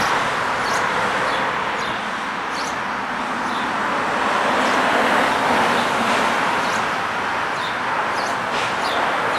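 Outdoor city-street ambience: a steady rushing noise that swells a little about halfway through, with small birds chirping short high notes over it again and again.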